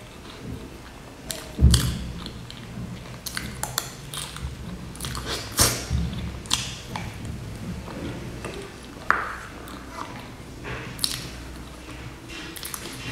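Close-miked eating sounds of a person chewing soft cream-filled sponge cake off a spoon: wet mouth sounds and lip smacks, with short sharp clicks scattered through, the loudest about one and a half seconds in.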